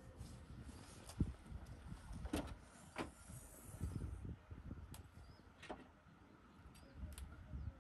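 An SUV's tailgate being worked and things handled in its boot: a few scattered clicks and knocks over a low rumble.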